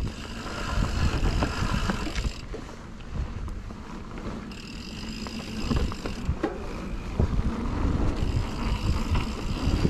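Mountain bike rolling over a dirt trail: a continuous rumble of knobby tyres with frequent knocks and rattles over bumps.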